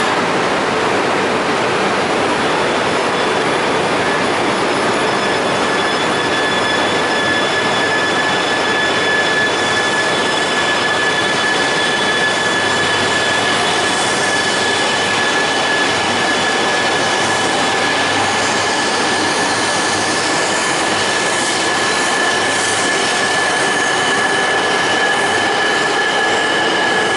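Coupled E2 and E3 series Shinkansen train pulling out and gathering speed alongside the platform: a steady rush of noise with high, steady whining tones that set in a few seconds in, and a lower tone that climbs gently through the second half as the train speeds up.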